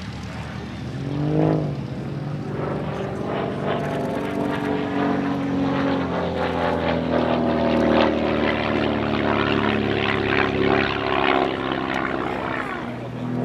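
Van's RV-8 aerobatic aircraft's piston engine and propeller droning through a display, the pitch shifting up and down as it manoeuvres. There is a brief swell about a second and a half in, and the sound is loudest through the middle as the aircraft passes close overhead.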